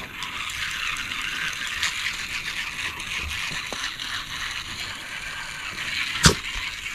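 A Shih Tzu worrying a spotted toy dog with her mouth: a steady fine rattling clatter, with one sharp knock about six seconds in.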